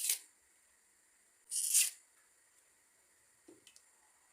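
Dry, papery onion skin being peeled off by hand: two brief rustles about a second and a half apart, then a few faint ticks near the end.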